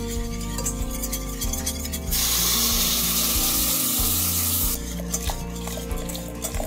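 Milk poured into a hot roux in a stainless-steel saucepan hisses loudly for about three seconds, starting about two seconds in, as it boils up into steam. Before and after it, a wire whisk ticks against the pan, under background music.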